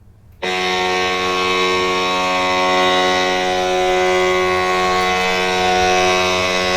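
San Jose Sharks goal horn sounding one long, steady blast that starts abruptly about half a second in.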